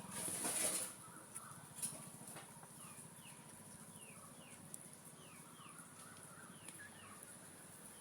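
A brief rustle or flutter in the first second, then a run of short, falling, high chirps from a bird, about two or three a second, most likely a chick or hen peeping.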